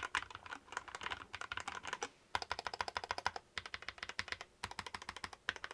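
Typing on an Ajazz AC064 mechanical keyboard with an aluminium alloy case: a fast, continuous run of keystrokes, with a brief pause about two seconds in.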